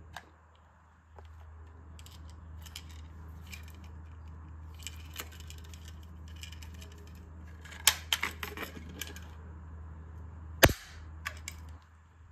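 Clicks, taps and knocks of a metal toy cork pistol being handled, with small flurries of clicks around the middle and one sharp click about ten and a half seconds in. A steady low hum runs underneath from about a second in.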